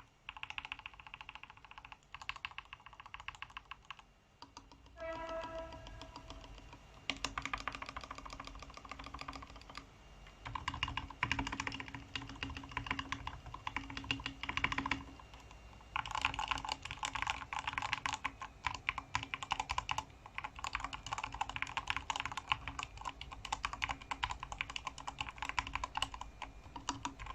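Mechanical keyboard with lubed Gateron Brown tactile switches being typed on in fast, continuous runs of keystrokes, with a short lull about four seconds in. A brief pitched tone sounds about five seconds in.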